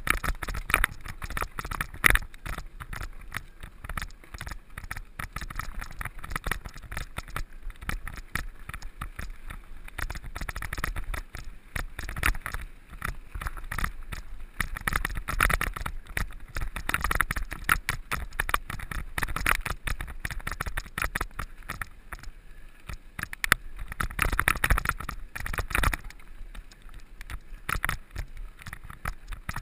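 Mountain bike ridden over a rough, stony quarry track: a continuous clatter and rattle of the bike and tyres over stones, with a steady low rumble of wind on the microphone.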